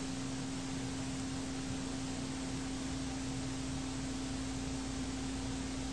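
Steady background hiss with a single low hum tone held unchanged throughout.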